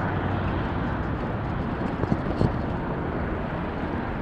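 Rumbling wind and road noise from a camera riding on a moving bicycle through city traffic, with a couple of sharp knocks a little over two seconds in.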